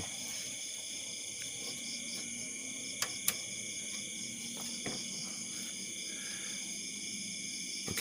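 Steady high-pitched insect chorus, with a few sharp clicks about three seconds in and again near five seconds.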